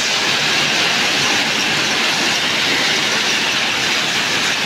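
Hailstorm: dense hailstones pelting hard surfaces in a steady, loud clatter.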